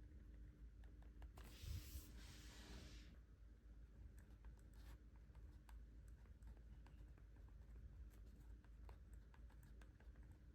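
Faint desk sounds of journaling: scattered small clicks and taps of pens and stationery on a planner, with a paper rustle lasting about two seconds, starting about a second and a half in.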